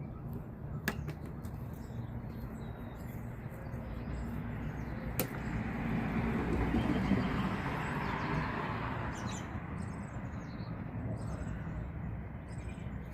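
Outdoor ambience: a steady low rush that swells up and fades again midway, with two sharp clicks and faint bird chirps near the end.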